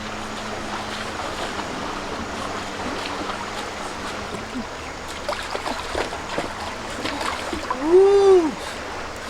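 Steady rushing of running water. Near the end comes one short, loud "ooh" from a voice, its pitch rising and then falling.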